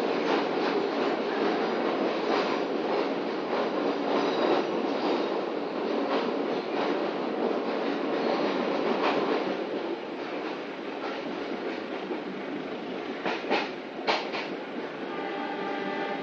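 Passenger train running at speed, heard from inside the carriage: a steady rumble with faint wheel clacks over the rail joints. Near the end come two sharp knocks, the loudest sounds.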